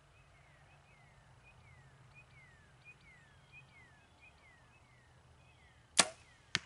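A compound bow is shot near the end: one sharp, loud crack of the string on release, then a second, fainter knock about half a second later, timed like the arrow striking the target at 40 yards. Before the shot, a bird repeats short falling whistles.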